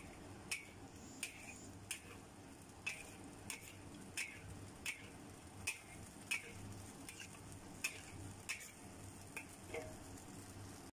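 Metal spatula stirring a thick soup in a wok, its edge knocking and scraping against the pan in short ringing clicks about once or twice a second.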